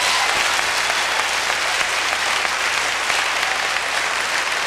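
A large audience in a hall applauding loudly and steadily in approval of a question just put to the speaker.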